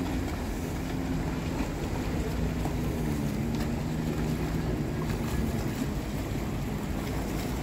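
Motorboat engines running steadily as the boat passes close by at harbour speed, a continuous low hum with faint steady engine tones, with wind noise on the microphone.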